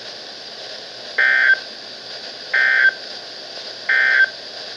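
Three short bursts of warbling digital data tones from a NOAA Weather Radio broadcast: the EAS/SAME end-of-message code, which marks the close of the warning. The bursts are about a second and a half apart, over steady radio hiss.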